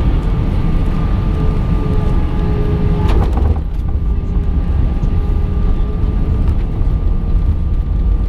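Airbus A319 cabin noise: a steady low rumble from the engines and airframe, with faint steady engine tones. About three seconds in there is a brief rattle, after which the sound is slightly quieter.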